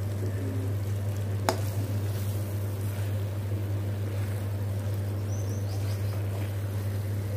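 A steady low hum under faint sizzling of a thick paneer butter masala gravy cooking in the pan, with one sharp click of the steel spatula against the pan about a second and a half in.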